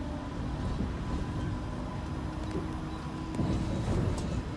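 Tram running along its track, heard from inside the car: a steady low rumble of wheels on rail with a faint motor hum, and a few short knocks about three and a half to four seconds in.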